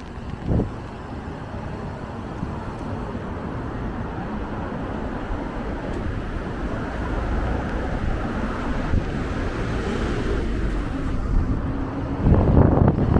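City street traffic on wet roads: a vehicle's tyre and engine noise builds steadily over several seconds as it approaches and passes. A short knock sounds about half a second in, and wind buffets the microphone heavily near the end.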